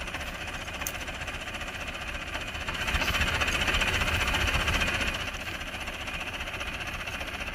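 Farm tractor's engine running at a steady idle while the tractor stands still. It is louder for about two seconds in the middle.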